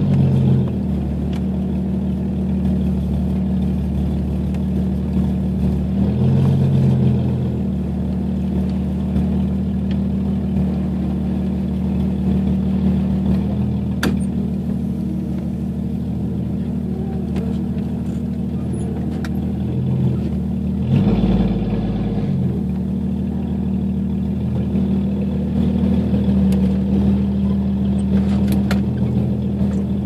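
1992 Jeep Cherokee XJ's 4.0-litre straight-six, straight-piped from the catalytic converter back, heard from inside the cab while driving: a steady exhaust drone whose note changes briefly about six seconds in and again about twenty-one seconds in.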